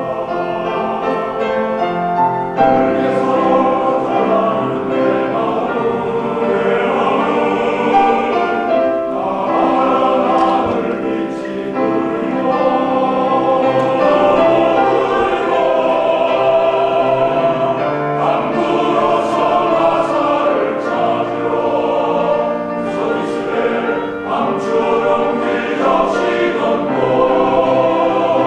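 Men's choir singing in full harmony, several voice parts holding long, sustained chords with clear sung consonants.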